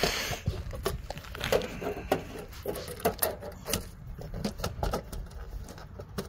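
Irregular light knocks, taps and scrapes of aluminium gutter guards being handled and set onto the gutter, mixed with boots and knees shifting on asphalt shingles, a few sharp clicks a second.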